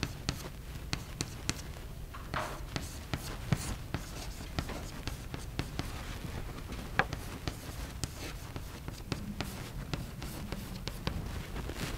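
Chalk writing on a blackboard: a string of short, sharp taps and scratches as the chalk strikes and drags, the sharpest about seven seconds in, over a steady low room hum.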